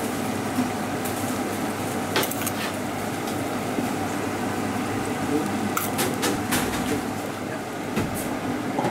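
A metal spoon clinking against a metal bowl and the rim of a large cooking pot as salt is sprinkled over vegetables, over a steady kitchen hiss. A metal lid goes onto the pot with a clank near the end.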